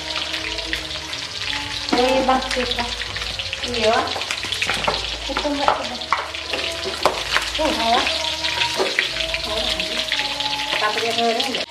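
Chicken pieces frying in hot oil in a wok, with a steady sizzle and constant crackling. Near the end a spatula stirs and turns the pieces.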